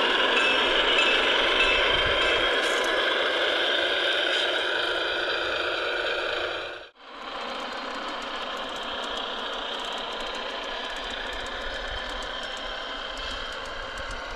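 Diesel locomotive engine sound from a G-scale model's Soundtraxx Blunami sound decoder, playing through the model's speaker along with the rattle of the model running. The sound cuts out abruptly about seven seconds in and resumes quieter, with light rapid clicking.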